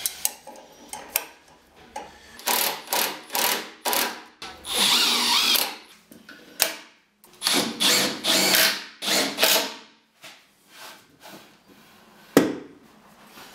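HiKOKI cordless driver running in a series of short bursts, driving screws through a steel gate hinge into a wooden bed leg. There is a sharp knock near the end.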